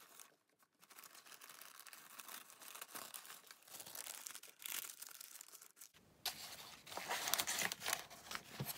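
Tissue paper rustling and crinkling as it is folded back by hand, then a plastic hair-mask sachet crinkling as it is picked up; the rustle grows clearly louder about six seconds in.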